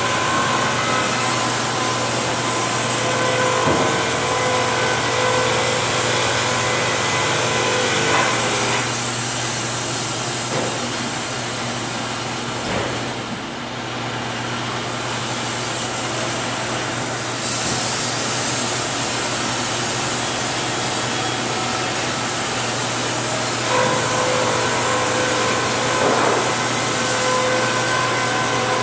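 Sawmill machinery running steadily: a Wood-Mizer LT50 band sawmill and a Morgan edger sawing walnut, giving a constant motor hum under steady machine noise. A steady whine stands out for the first several seconds and again near the end.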